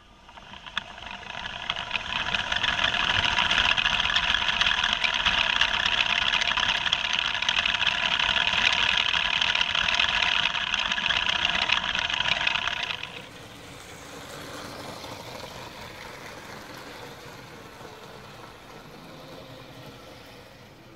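Electric motor and gearing of a toy building-block train running on plastic track, heard up close from on board: a steady whir that builds up over the first two seconds. About thirteen seconds in it drops suddenly to a much quieter, more distant running noise.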